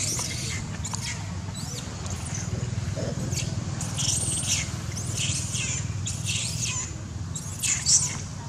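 Young long-tailed macaques squealing in a string of short, high-pitched calls, with the loudest near the end as one monkey chases the others. A steady low rumble runs underneath.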